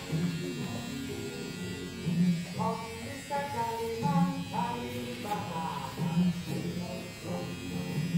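Background music with a melody and recurring low bass notes.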